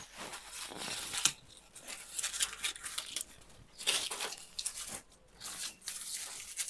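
Irregular rustling and crackling noises in short uneven bursts.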